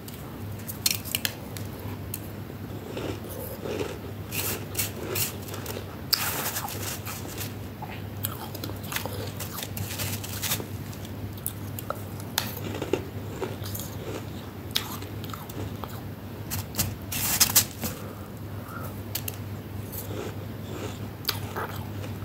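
Close-miked biting and chewing of flaky freezer frost: irregular crisp crunches and crackles, with louder crunches about six and seventeen seconds in, over a steady low hum.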